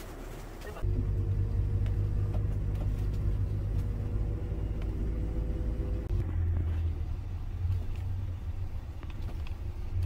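Hyundai shuttle minibus driving, its engine and road noise heard as a steady low rumble from inside the cabin, beginning abruptly about a second in.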